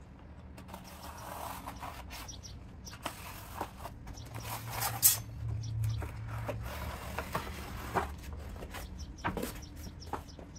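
Flattened cardboard box being scored, creased and folded by hand along a metal straightedge: rubbing and scraping with scattered taps and clicks, the sharpest about five seconds in.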